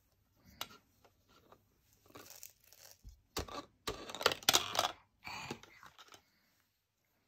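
Toys being handled: scattered clicks, scrapes and rustles, busiest between about three and five seconds in.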